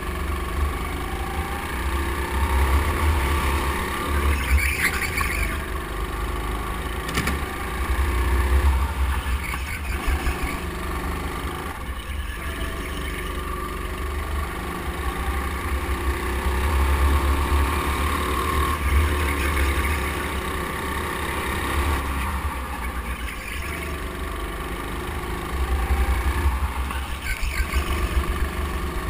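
Go-kart driving laps on an indoor track, heard from on board: a steady mechanical drone with a low rumble that swells and fades every several seconds as the kart speeds up and slows.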